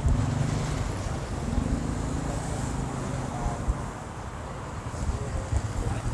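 A motor vehicle's engine running as it passes close by on the road, fading after about three seconds, over street traffic noise and gusts of wind on the microphone.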